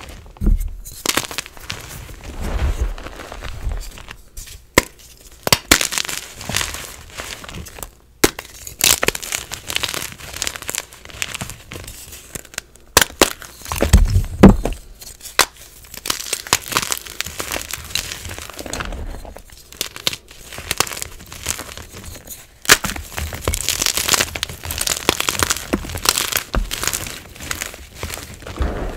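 Hands crushing and crumbling blocks of gym chalk and loose chalk powder: a steady run of dry crunching and crackling, with chunks snapping apart. The loudest snaps come about fourteen seconds in.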